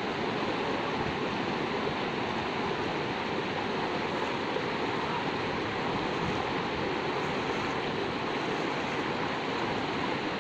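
Shallow river rushing steadily over rocks and boulders.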